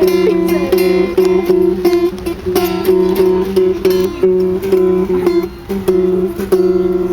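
Instrumental backing music with a plucked-string, guitar-like sound over two steady held notes, struck in an even rhythm about twice a second.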